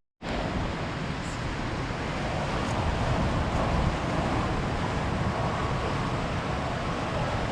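Ocean surf washing steadily on a beach, with wind rumbling on the microphone. The sound drops out for a split second at the very start, then runs on evenly.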